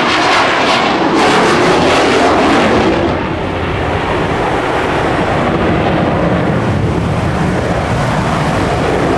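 Twin-tailed jet fighter flying past overhead: a loud, continuous rush of jet engine noise, rougher and crackling for the first three seconds, then a little smoother.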